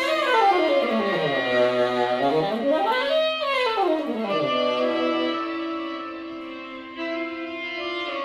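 Tenor saxophone run through electronic sound effects, its pitch sliding down in a long swoop, holding low, rising again and falling once more over a steady held drone. A new phrase enters near the end. Free-jazz improvisation.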